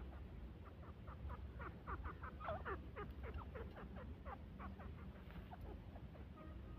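Grey francolin (teetar) calling: a run of short, quick falling notes, several a second in uneven bunches, over a low background rumble.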